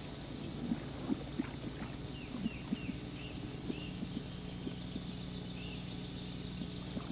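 Riverside wildlife ambience: a steady low hum with scattered soft knocks, and a run of short high chirping calls a couple of seconds in, with one more later.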